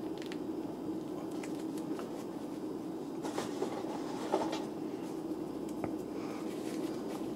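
A steady background hum, with a few faint clicks and rustles as a plastic action figure and its soft coat are handled by hand.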